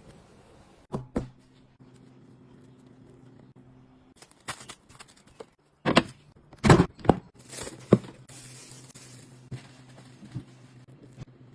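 Food-preparation handling sounds: two sharp knocks about a second in, then a cluster of louder knocks and clatter around the middle, with a few lighter taps near the end, over a low steady hum.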